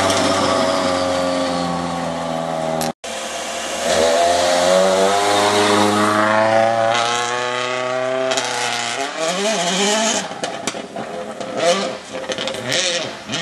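Citroën C4 WRC rally car's turbocharged four-cylinder engine at speed on gravel, cutting out for an instant about three seconds in, then climbing steadily in pitch as it accelerates past. About nine seconds in the engine note drops and turns uneven, with sharp cracks, as the car slides away.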